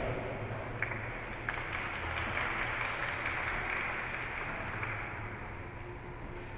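Audience applauding, gradually dying away.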